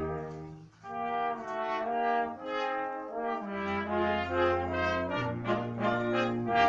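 Trumpet and trombone solo duet with a wind band accompanying: a short break just before a second in, then a run of quick brass notes over sustained low notes from the band.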